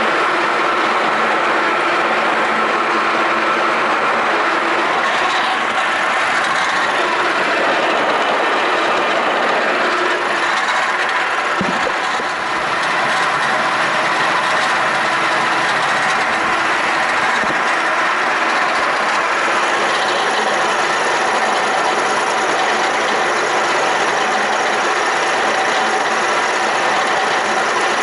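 FYD-32 milling machine running, its face mill cutting a C45 steel bar: a loud, steady cutting and machine noise with a faint hum, dipping briefly about twelve seconds in.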